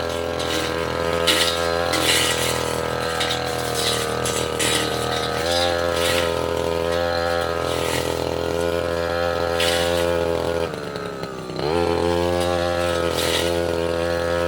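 Tasco 33 Pro brush cutter engine running at high revs, with repeated noisy rasps of the blade cutting into saplings and small roots. About eleven seconds in, the revs drop for a moment, then rise again.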